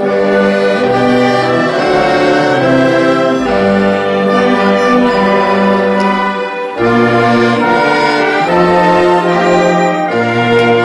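Live orchestra with winds and brass playing full, sustained chords, starting suddenly at the beginning. The music breaks off briefly about seven seconds in, then resumes.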